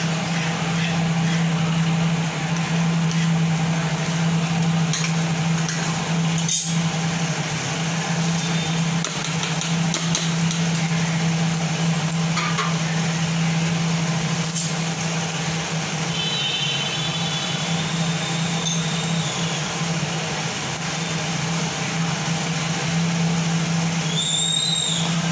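Steady hum and hiss of a kitchen fan running, with a few light knocks of a spoon against a steel pan.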